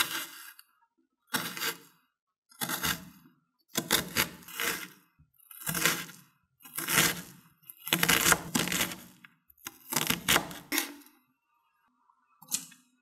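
Chef's knife chopping an onion on a wooden cutting board: quick runs of knife strokes knocking on the board, in about eight bursts with short pauses between. One short tap near the end.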